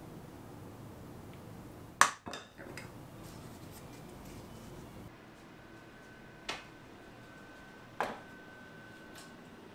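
Metal kitchenware being handled: a sharp metal clack about two seconds in, followed by a few lighter knocks, then two more knocks a second or so apart as a metal muffin pan is moved. A faint steady high hum joins from about halfway through.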